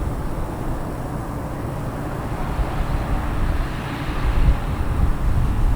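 Jet engines of a Boeing 737-800 airliner passing close by, a steady low rumble with a hiss above it that grows gradually louder.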